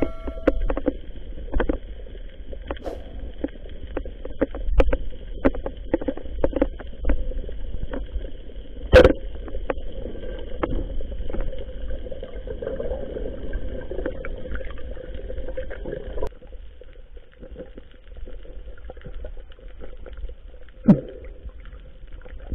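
Underwater sound picked up through an action camera's waterproof housing: a constant low rumble of water and movement with scattered clicks and knocks, the sharpest one about nine seconds in. A faint steady whine runs underneath and stops about sixteen seconds in.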